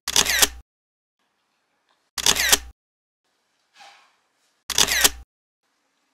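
Camera shutter clicking three times, about two and a half seconds apart, each a short sharp snap.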